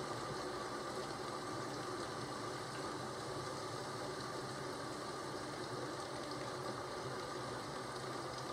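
Steady rain ambience, an even hiss with a low rumble beneath.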